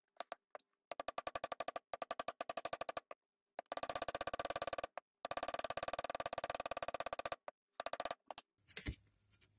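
Rapid, even clicking, about fifteen clicks a second, in several runs of one to two seconds with short breaks, as a tool drives a slotted scissor pivot screw into a block of wood.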